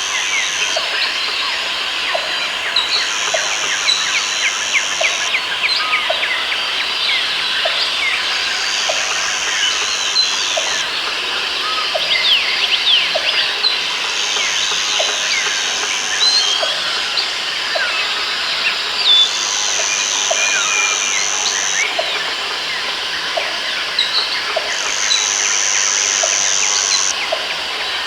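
Jungle ambience with many birds chirping, a high steady buzz that comes in for about two seconds every few seconds, and a short low note repeating about once a second.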